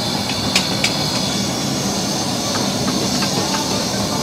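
Gas burner roaring at high flame under a karahi, with the food sizzling in the pan; a metal spatula clinks sharply against the pan twice in the first second.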